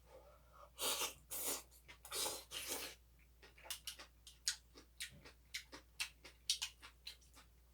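Close-miked eating: three or four loud, noisy slurps in the first few seconds, then a quick run of short smacking clicks of chewing.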